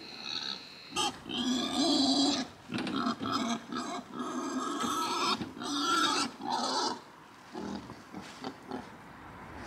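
Wild boar squealing and grunting in a run of loud, harsh calls from about a second in until about seven seconds in, then quieter.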